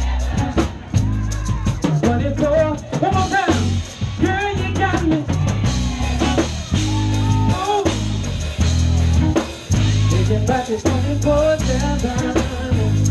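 Live southern soul band playing loudly through the PA, drum kit keeping a steady beat under a deep bass line, with a male singer singing drawn-out, sliding phrases over it.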